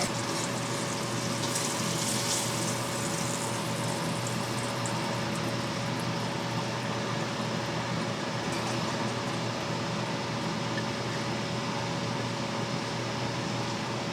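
Steady fan noise with a constant faint hum. Over it, light sizzling from a carbon steel pan crackles during the first few seconds and then dies away.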